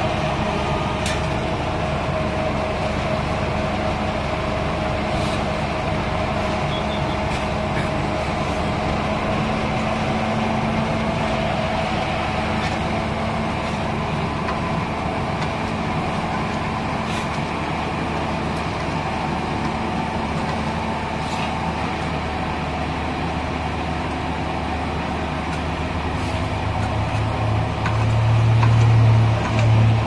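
Asphalt paver's engine running steadily while it lays bitumen, with a few faint clicks and scrapes from shovels. A louder low drone comes in near the end.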